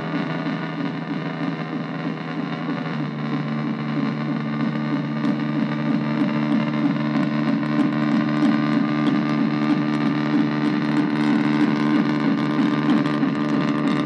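Analog synthesizer drone noise from an Arturia MicroBrute cross-patched with a Casper Electronics Nova Drone, played through a small bass amp: a dense, distorted, sustained drone of stacked low tones with a fast wobbling modulation setting in after a few seconds.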